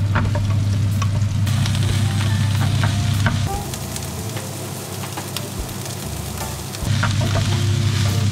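Diced red onion and then kale frying in a nonstick pan, sizzling, with a plastic spatula stirring and scraping against the pan in small clicks. A low steady hum runs behind it and drops out for a few seconds in the middle.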